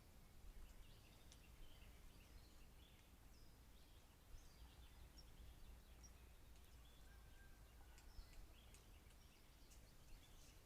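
Faint outdoor ambience: scattered short bird chirps and calls, a few seconds apart, over a low steady background rumble.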